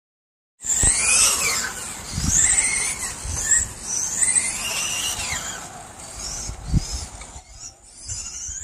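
Electric 1/10 touring car (Carten T410R) whining from its 13.5-turn brushless motor and drivetrain. The pitch rises and falls over and over as it speeds up on the straights and slows for the corners. The sound starts suddenly about half a second in, with a few low thumps.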